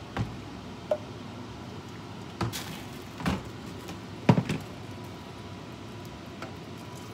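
Kitchen items being handled and set down around a pan on a hob: a handful of separate knocks and clunks, one with a small clink about a second in, the loudest a double knock about four seconds in. Under them runs a steady low hum.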